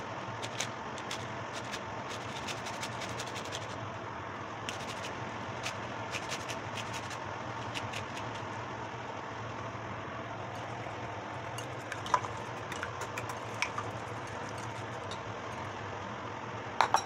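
Metal grater scraping orange peel, light scratchy scrapes and ticks over the first several seconds, with a few clicks later, over a steady low hum. Near the end, a couple of sharp clinks of a wire whisk against a bowl.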